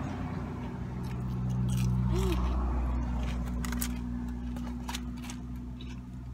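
Close-up biting and chewing of a fried chicken strip, with scattered crisp crunches, over a steady low hum.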